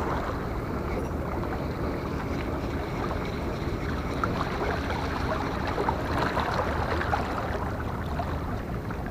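Steady wind buffeting the microphone, mixed with sea water washing against the rocks of a seawall.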